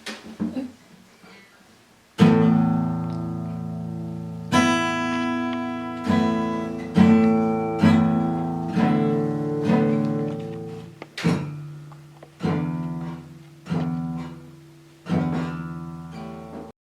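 Acoustic guitar music: slow chords, each strummed once and left to ring out before the next, starting about two seconds in after a few faint knocks.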